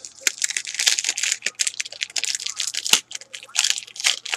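A trading card pack's wrapper being torn open by hand, crinkling in a dense, irregular run of crackles.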